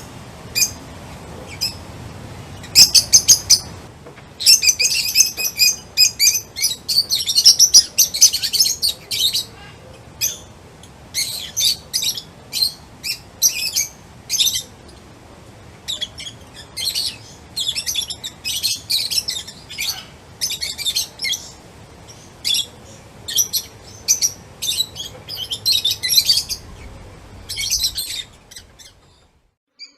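Songbirds chirping: rapid runs of short, high-pitched notes in repeated bursts, one after another with brief gaps. The chirping stops shortly before the end.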